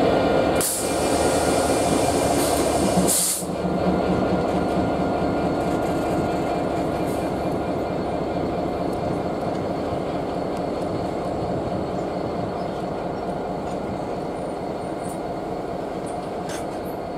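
GB Railfreight Class 66 diesel locomotive, with its EMD two-stroke V12 engine, running as it hauls an empty ballast train away, the sound fading slowly as the box wagons roll past with a steady rumble and clatter. Two short high-pitched hisses come about one second and three seconds in.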